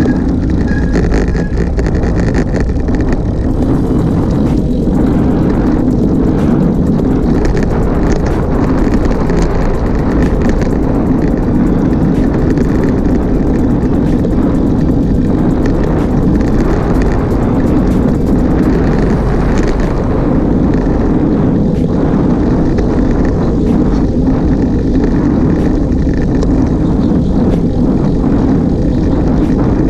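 Wind rushing over the microphone of a handlebar-mounted camera on a moving road bike, a steady loud rumble mixed with tyre and road noise, with scattered light ticks throughout.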